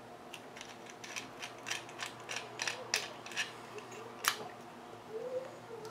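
Plastic camera bike-mount parts being handled and adjusted, a string of irregular small clicks with one sharper click about four seconds in.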